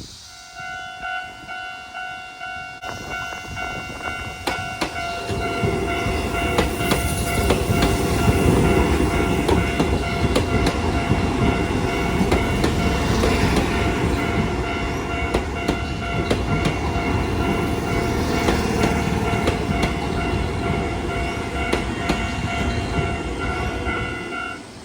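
Japanese level-crossing alarm ringing its steady electronic tone while a train passes over the crossing, starting about five seconds in, with wheels clicking over the rail joints. The alarm and the train noise both stop just before the end.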